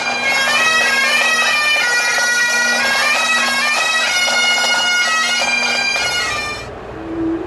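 Great Highland bagpipes playing: a steady drone under the chanter's melody, which stops about six and a half seconds in. A lower sustained tone starts just before the end.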